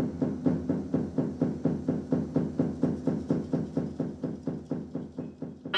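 Rapid, even pulse of low knocks, about four a second, over a low droning tone: a rhythmic percussive soundtrack beat.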